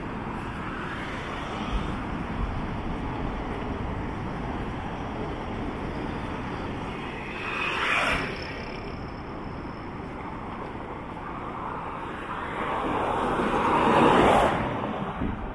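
Road traffic passing on a bridge: a steady hiss of tyres and engines, with one car passing close about halfway through and a louder one swelling and fading near the end.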